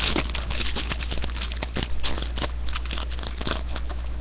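A Series 1 hockey card pack wrapper being torn open and crinkled: a run of quick, irregular crackles over a steady low hum.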